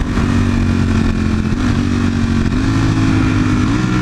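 Sport motorcycle engine running steadily under way, its pitch stepping up slightly three times as the revs climb, over a steady rush of wind noise.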